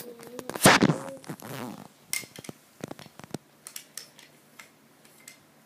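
Toy train cars being handled and knocked against each other and the track: a string of sharp clicks and clacks, loudest about a second in, thinning out toward the end.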